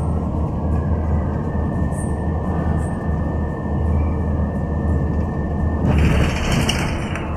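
Steady low rumble of engine and road noise heard inside a moving vehicle's cabin. About six seconds in, a louder hiss rises over it for a second or so.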